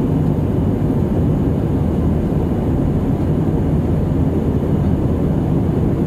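Steady cabin noise inside an Airbus A319 in flight: engine and airflow noise, deep and even, heard from a window seat over the wing.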